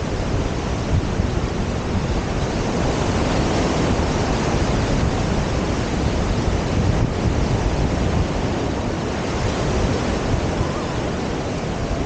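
Ocean surf breaking and washing up the beach in a steady rush, mixed with wind buffeting the microphone.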